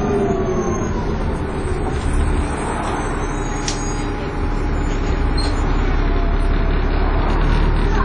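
Dennis Trident 2 double-decker bus under way, heard from inside on the upper deck: a steady engine and road drone with a faint whine running over it, the 'hoover' sound of these buses.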